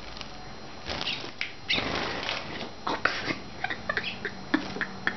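Cut-throat finches bathing in a shallow bird bath: a burst of splashing and wing fluttering about a second in, followed by scattered short ticks and taps.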